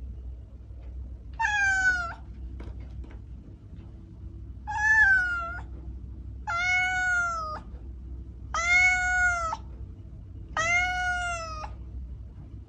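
A domestic cat meowing five times, each meow about a second long and rising then falling in pitch.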